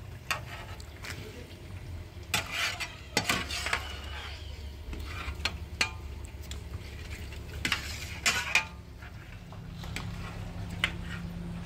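Metal ladles scraping, clinking and stirring in a large aluminium cooking pot of chicken broth as pieces of chicken are lifted out, in irregular clusters of sharp knocks over a steady low rumble.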